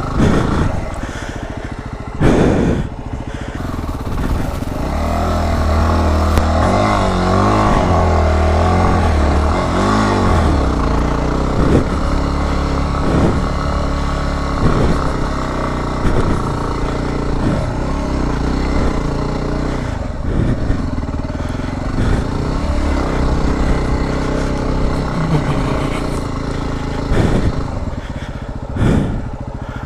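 Yamaha WR250R's 250 cc single-cylinder four-stroke engine running under load, the revs rising and falling sharply for several seconds early on as the bike works through snow, then running steadier. Short knocks and clatter come through now and then.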